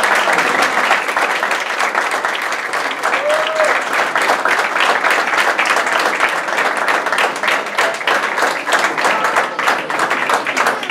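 Crowd of guests applauding, dense steady clapping, with a brief voice rising above it about three and a half seconds in.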